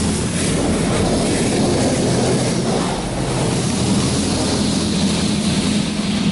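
High-pressure water jets from a D&S i5000 touchless car wash pounding on a car's roof and windows, heard from inside the cabin as a steady hiss and drumming over a low machine hum.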